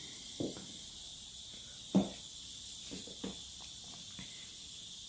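Faint steady high-pitched hiss with a few soft knocks scattered through it, the loudest about two seconds in.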